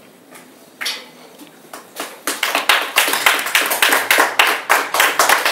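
A small audience clapping, starting about two seconds in and building to a dense, steady round of applause. A single sharp knock sounds about a second in.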